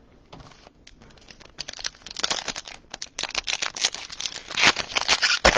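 Plastic wrapper of a 2020-21 Donruss basketball card pack crinkling as it is handled and opened. It is quiet for the first second and a half, then builds to a dense run of crackles, loudest near the end.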